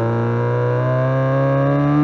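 Homemade electronic sound effect imitating a Subaru EJ20 flat-four's equal-length exhaust note, a buzzy engine-like drone rising slowly in pitch as its simulated revs climb.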